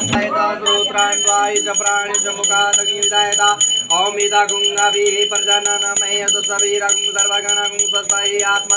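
A temple hand bell rung continuously and fast during aarti, a steady high ringing, with long held notes sounding over it that slide up and hold again about four seconds in.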